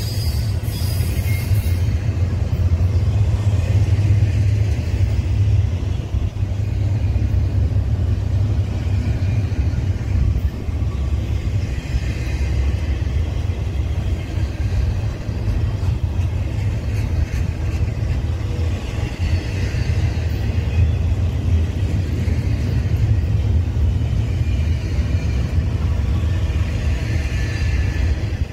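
BNSF double-stack intermodal train rolling past at close range: a steady low rumble of wheels and well cars on the rails, with faint high-pitched ringing tones that come and go several times.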